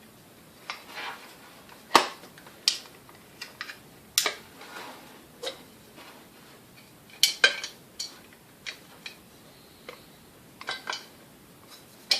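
Irregular clicks and knocks of the KitchenAid A9 coffee mill's parts being handled and worked apart by hand, the sharpest about two, four and seven seconds in.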